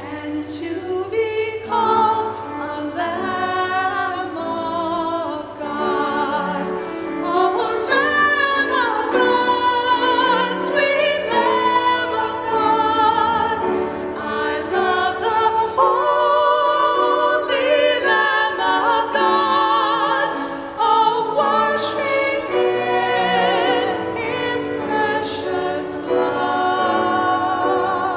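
Two women singing a duet into handheld microphones, amplified, with a wavering vibrato on the held notes.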